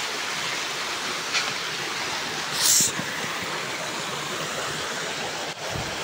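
Steady rush of a stream running over rocks below a waterfall, with one short, sharp hiss about two and a half seconds in.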